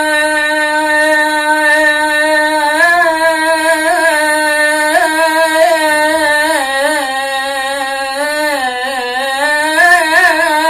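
A man singing an Iraqi song, stretching one long melismatic vowel without words. He holds the note steady for a few seconds, then bends and wavers it through ornamented turns. A single voice carries it, with no clear accompaniment.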